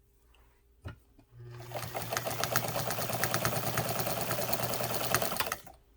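Necchi Mira BU sewing machine starting up about a second and a half in and sewing at a steady speed for about four seconds: motor hum under rapid needle ticking, stopping shortly before the end. A single click comes just before it starts.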